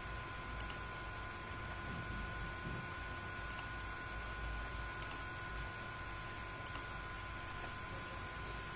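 Computer mouse clicks, five of them a second or two apart, each a quick double tick of press and release, over a steady faint electrical whine and background hiss.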